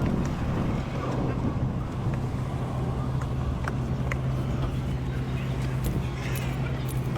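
A vehicle engine idling with a steady low hum, with scattered light clicks and taps over it.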